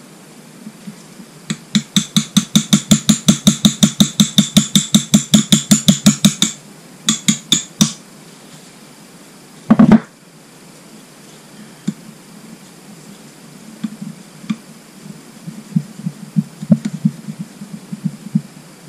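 Rapid, evenly spaced ringing metal taps, about seven a second for some five seconds, then four more taps and one loud knock, as a valve rocker and its shaft are worked into place in a Suzuki GN250's cylinder head cover. Light metallic clicks of the parts follow near the end.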